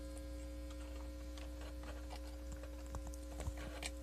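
Steady electrical hum from the patched circuit and its amplifier, with no synth or siren tone sounding, and a few faint clicks of wires being worked into the kit's spring terminals in the second half.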